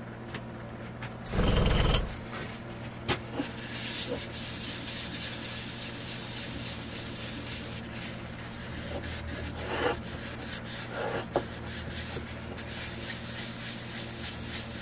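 A crumpled cloth rubbing steadily over a spalted beech trinket box in the hands, wiping and buffing the sanding sealer just applied. A short loud noise comes about a second and a half in.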